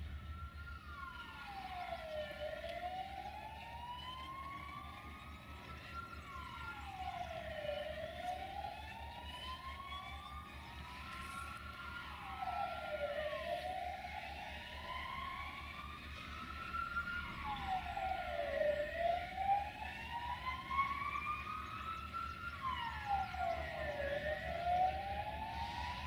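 A wailing siren, its pitch sweeping down and slowly back up about every five and a half seconds, over the low steady rumble of a diesel-electric locomotive's engine.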